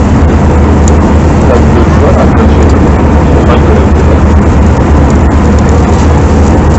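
Airliner cabin noise in cruise flight, heard from a window seat beside a wing-mounted jet engine: a loud, steady low rumble of engine and airflow that does not change.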